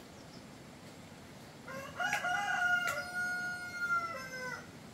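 A rooster crowing once, a single drawn-out crow lasting about three seconds that begins nearly two seconds in and trails off at the end.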